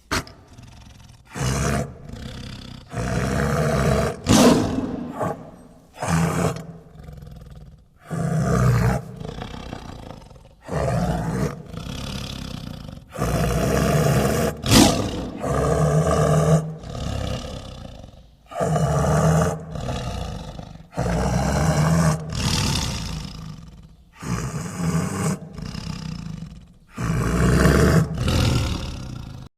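A large animal giving loud, low roaring calls over and over, about a dozen calls each a second or two long with short pauses between them.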